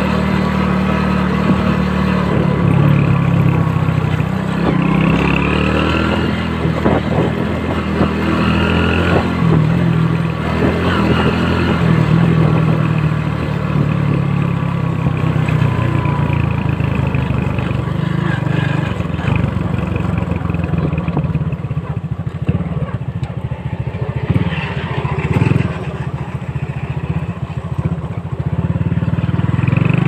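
Small motorcycle engine running steadily under way, heard from the rider's seat. Past two-thirds through the engine note eases off and goes rougher, then picks up again near the end.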